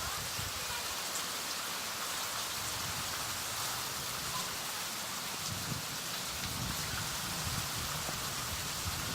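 Hurricane Irma's heavy rain and wind: a steady hiss of driving rain, with low rumbling gusts coming in from about halfway through.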